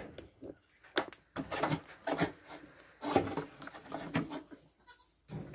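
Scattered knocks and scuffs of close handling as a rubber dehorning band is stretched with an elastrator and worked onto a goat's horn in a wooden stall.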